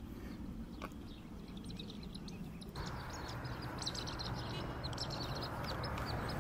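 Wind rumbling on the microphone with small birds chirping in quick, high notes. About three seconds in a louder, even rushing hiss joins the wind.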